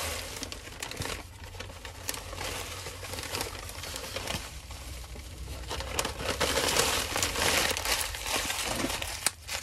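Newspaper wrapping being pulled off a potted cactus and crumpled by hand, crackling and rustling throughout and growing louder in the last few seconds.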